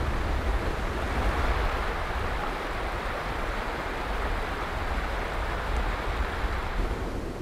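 Mountain stream rushing over rocks: a steady rush of water.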